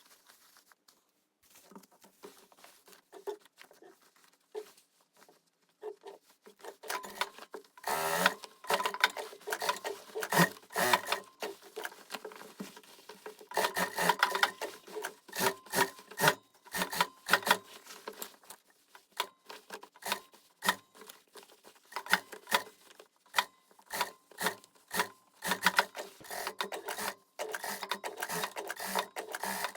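Sewing machine stitching a tear in jeans, running in short stops and starts over a steady motor hum from about eight seconds in. Before that, only faint handling and rubbing of fabric.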